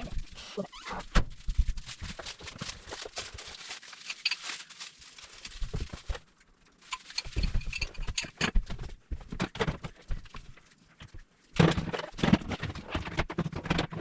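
Objects being handled and set down: irregular knocks, thunks and rustling. It pauses briefly around the middle and again shortly before the end.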